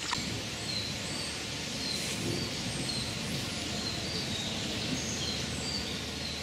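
Outdoor ambience: a steady background hiss with a small bird repeating short, high chirps about twice a second.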